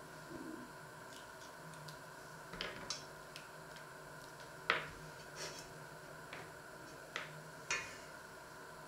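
Scattered light clicks and taps of a small knife and plum stones on a wooden cutting board as plums are pitted by hand, the sharpest one about halfway through. A faint steady hum runs underneath.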